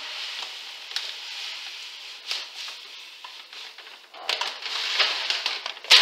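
Birdseed poured from a bag into a stainless steel bowl of hot rendered deer fat and stirred with a wooden spoon: a steady hiss of pattering seed and sizzling fat, with scattered clicks and crackles. It gets louder and rougher about four seconds in, and there is a sharp knock near the end.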